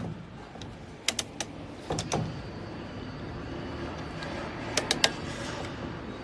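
Small ceramic space heater's fan running with a steady whirr, while several sharp clicks and knocks come in three clusters, about a second in, about two seconds in, and near five seconds.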